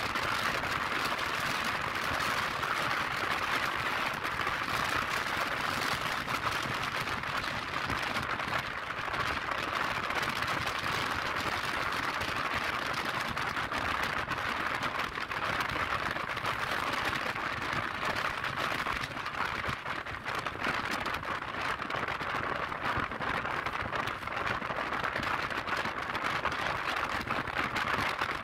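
Steady rush of wind and road noise recorded from a Yamaha Lexi scooter riding at speed.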